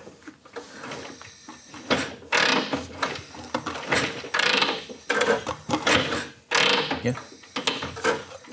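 Kick-starter of a freshly restored 1942 Harley-Davidson UL being kicked over several times with no fuel in the tank: the kick-start mechanism ratchets and clatters with each stroke while the flathead V-twin turns over without firing.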